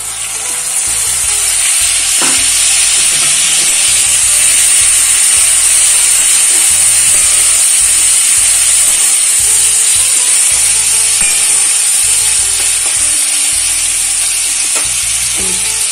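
Onion rings and freshly added sauces sizzling loudly in hot oil in a steel wok, a steady hiss that swells about a second in. A spatula scrapes through it now and then as the mixture is stirred.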